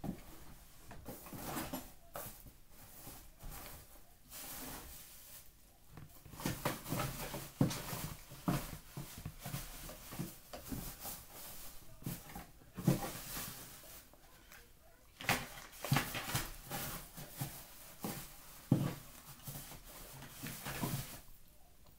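Close-up chewing of dry cornstarch lumps eaten straight from the bag: irregular crunching bites, thickest from a few seconds in onward.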